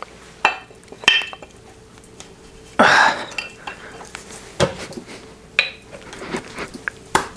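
Heavy steel auto parts clinking and knocking as a broken CV axle shaft and the damaged four-wheel-drive bearing housing are handled and fitted together: several separate knocks, with a louder, longer scraping clank about three seconds in.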